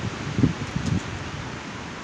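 Strong wind blowing in gusts, buffeting the microphone with uneven low rumbles over a steady rustling hiss of leaves.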